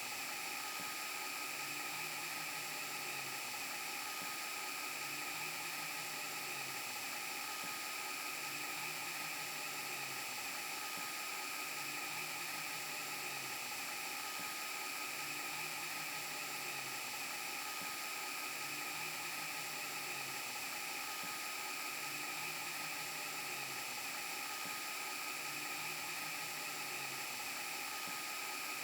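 VHS rewind and broken-TV glitch sound effect: a steady hiss and whir with a few high steady tones over it, and a low hum that swells and fades about every two seconds in a repeating loop.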